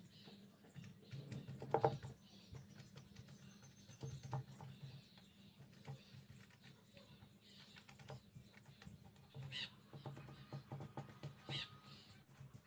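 Paintbrush dabbing and scrubbing resin into chopped-strand fiberglass mat on a mould: faint, irregular scratchy taps and clicks, with a louder knock about two seconds in.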